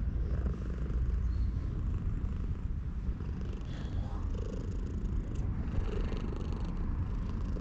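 Cat purring steadily while being stroked, close to the microphone.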